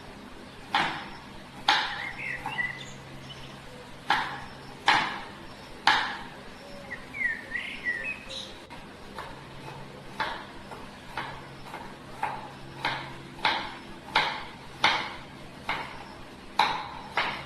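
Sharp, irregular knocks of kitchen utensils and cookware, roughly one a second. A bird chirps twice in between, about two seconds in and again around seven seconds.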